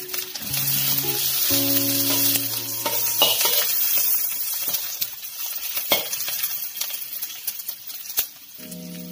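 Prawns, red chillies and galangal shoots sizzling in hot oil in a steel wok, stirred with a metal spatula that scrapes and clinks against the wok a few times. Background music plays over the first few seconds and comes back near the end.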